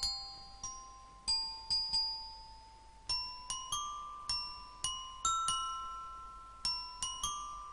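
Background music: a slow melody of struck, bell-like notes, each ringing and fading before the next.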